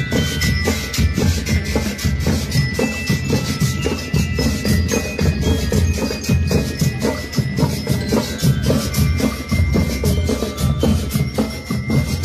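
Marching band playing: drums keep a dense, steady beat while bell lyres ring out the melody on top.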